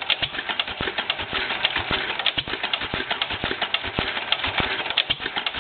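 1954 Fairbanks-Morse ZC52 single-cylinder, throttle-governed oil field engine idling very slowly on propane at roughly 100 to 110 RPM. Its valve gear and running parts make a steady patter of sharp clicks and knocks, several a second.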